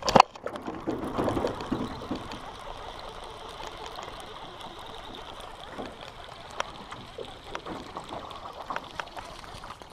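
Water sloshing and splashing by a small boat as a hooked yellow perch is reeled in. A sharp knock comes right at the start, and light clicks and taps are scattered through it.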